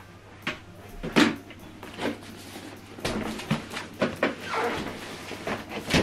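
Large cardboard boxes being shifted and set down on a table: a series of hollow knocks and bumps with some scraping of cardboard in between.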